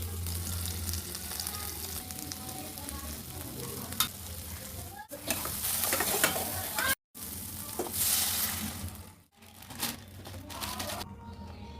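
Food sizzling as it fries in a pan, with stirring. The sizzle stops abruptly and starts again about three times, and is louder in two stretches past the middle, with a sharp tick about four seconds in.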